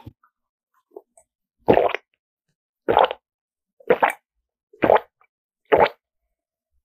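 A person gulping down a drink from a cup: five loud swallows, about one a second, with silence between them.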